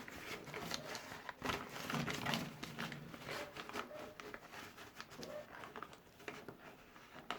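Scissors cutting a sheet of paper for a template, with irregular snips and the crinkle of the paper being handled.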